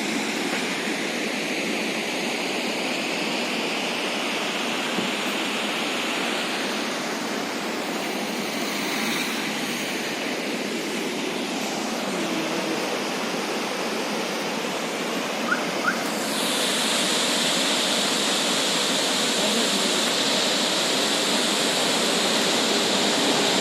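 Valara Waterfall rushing in a steady roar of falling and splashing water. About sixteen seconds in, the sound gets louder and brighter.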